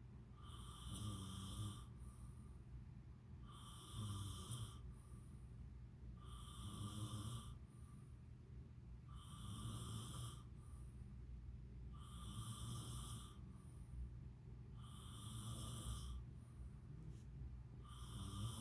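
Snoring in a steady rhythm, one snore about every three seconds, each carrying a high whistling tone.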